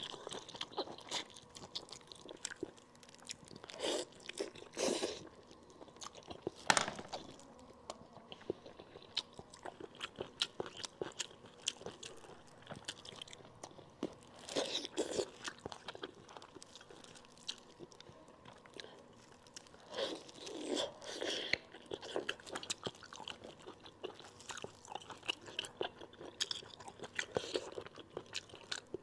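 A person chewing and biting stewed monkfish close to a clip-on microphone: wet mouth clicks, smacking and crunching as meat is gnawed off the bony pieces, with a few louder bites now and then.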